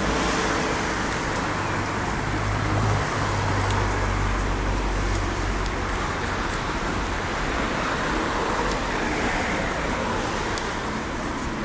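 Steady city road traffic, with a low vehicle engine hum loudest from about three to six seconds in.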